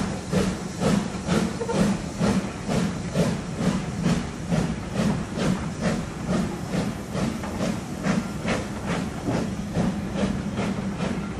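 Steam locomotive exhaust chuffing in a steady rhythm of about two beats a second, with steam hiss, as the Ivatt Class 2MT 2-6-2T tank engine No 41241 hauls a rake of coaches.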